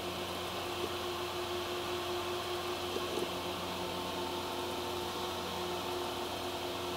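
Steady room hum and hiss with a few faint ticks.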